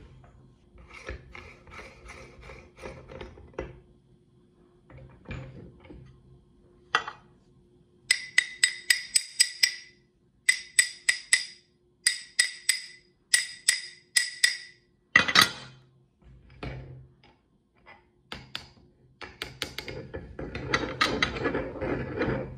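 Metal parts of a meat grinder being handled and taken apart: clinks and knocks, then short bursts of rapid, ringing metal taps about five a second, one loud knock, and scraping and rustling near the end.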